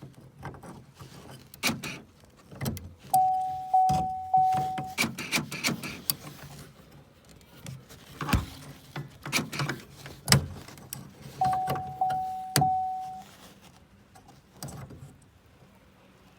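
Hands working plastic and metal door parts: scattered clicks, knocks and rattles of a car door being fitted back together. Twice a steady electronic beep tone sounds for about two seconds while the clicking goes on.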